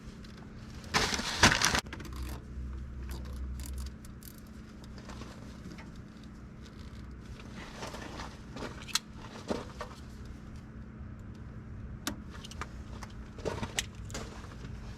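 Rummaging among small loose items, with a loud jangling rattle about a second in, followed by scattered light clicks and clatter.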